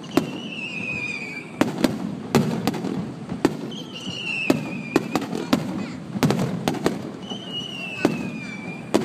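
Fireworks display: about a dozen sharp bangs of shells bursting at uneven intervals. Three times a high whistle slides slightly down in pitch over about a second.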